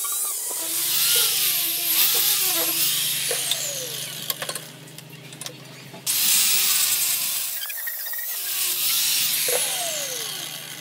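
Angle grinder with a sanding disc running and pressed against the steel rake head to take off rust. The steady motor whine carries a harsh abrasive hiss in passes, and it stops briefly, then starts again, a little before 8 seconds in.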